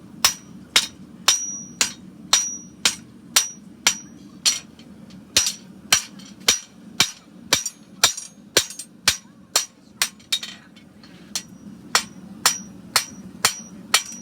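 Farrier's hammer striking a steel horseshoe on the anvil, about two blows a second, many with a bright metallic ring, while the shoe is forged by hand; the blows break off briefly a little past the middle, then resume.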